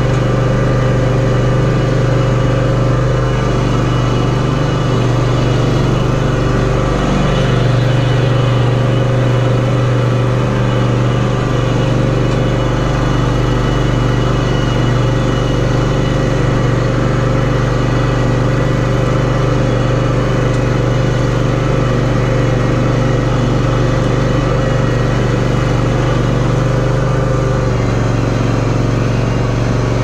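John Deere X300R lawn tractor's engine running steadily as the tractor pushes snow with a front blade. Its pitch drops slightly near the end.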